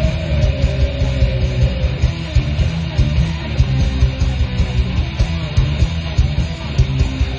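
Rock band music led by electric guitar, over a steady drum beat.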